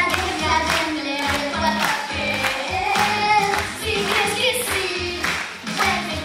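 Children singing a pop song into microphones over a backing track with a steady beat.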